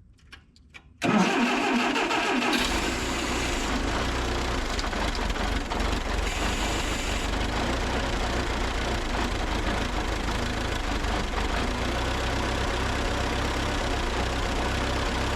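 Freshly rebuilt engine of a 1964 Allis-Chalmers I-40 tractor catching about a second in, rising briefly in speed and then running steadily.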